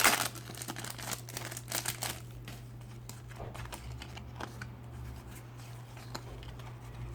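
A foil trading-card packet crinkling and being torn open for the first couple of seconds, then sparser rustles and light clicks as the cards are handled, over a steady low hum.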